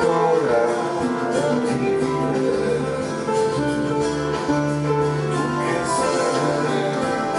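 Instrumental music with no singing: keyboards playing slow, held chords over a steady accompaniment.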